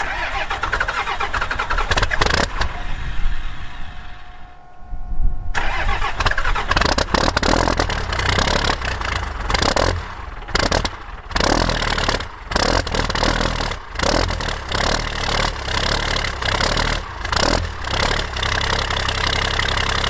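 Cold start of a 1994 Dodge Ram 2500's 5.9-litre 12-valve Cummins turbodiesel inline-six, heard at the exhaust tip at about 27°F. The starter cranks for about four to five seconds. After a brief lull the engine fires at about five and a half seconds and runs unevenly, its level dipping again and again. It starts harder in the cold because its injection timing has been advanced from factory.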